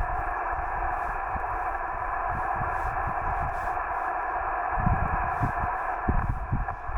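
Steady receiver hiss of HF band noise from a Yaesu FT-891 transceiver's speaker on single sideband, cut off sharply above and below like a narrow radio passband, with faint steady tones in it. Low, irregular thumps join in from about five seconds in.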